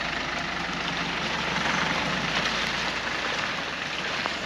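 Heavy rain falling, an even steady hiss.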